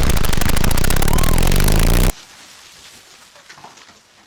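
Loud rumble and rapid crackle of an explosion. It cuts off abruptly about two seconds in, leaving only faint sounds.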